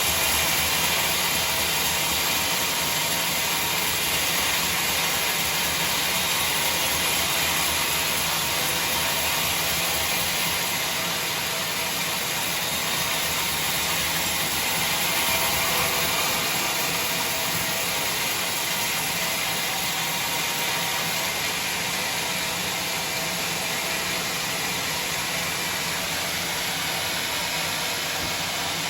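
Sawmill machinery running steadily: a continuous, even hiss-like machine noise with no breaks or separate impacts.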